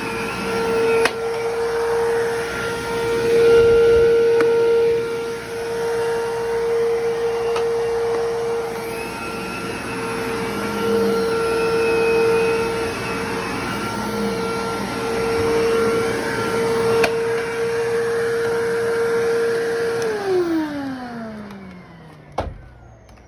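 Bissell Lift-Off bagless upright vacuum cleaner running with a steady motor tone; about twenty seconds in it is switched off and the motor winds down, its pitch falling away, followed by a single click.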